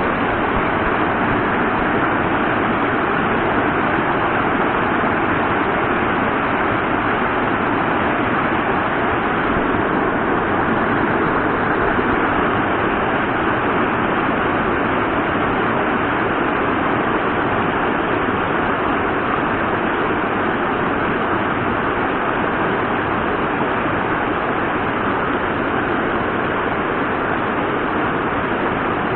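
Mountain stream water rushing steadily, an even, unbroken noise.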